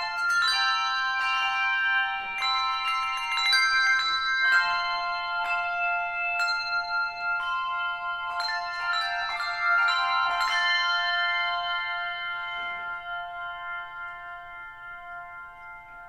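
Handbell choir ringing a slow passage of chords, a new set of bells struck about every second. The last chord, struck about ten seconds in, is left to ring and fades away.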